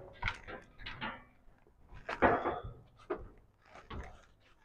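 Steel shuttering plate being handled and set on a brick wall: a series of short knocks and scrapes, the loudest about two seconds in.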